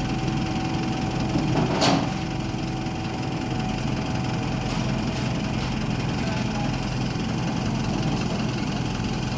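Crane truck's engine idling steadily, with one short sharp noise about two seconds in.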